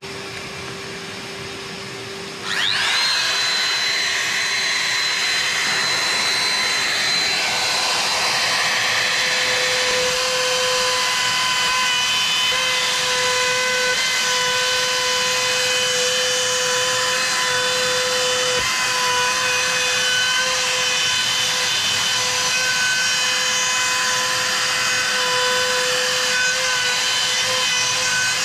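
Makita compact router switching on about two and a half seconds in, spinning up, then running steadily at full speed while routing a bowtie recess into wood through an acrylic template. A quieter steady hum comes before it starts.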